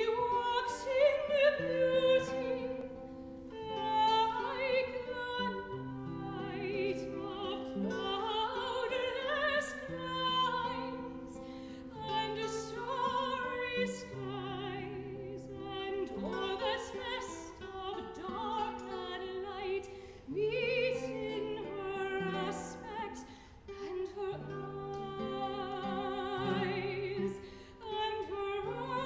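Classical soprano singing an art song with wide vibrato, accompanied by baroque guitar, in a resonant church.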